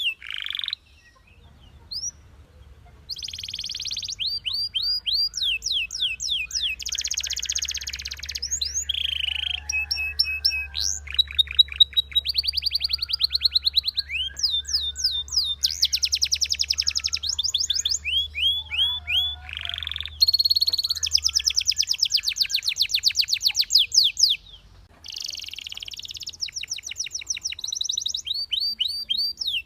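A male domestic canary (Belgian canary) singing a long, continuous song. Rapid series of repeated sweeping notes and trills change from one phrase to the next every second or two, with brief pauses about a second in and near the end.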